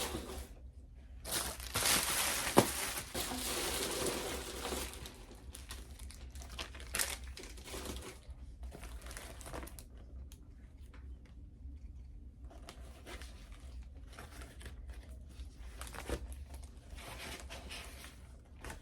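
Packaging crinkling and rustling as it is handled and opened, loudest in the first few seconds with a sharp click about two and a half seconds in, then softer intermittent rustles.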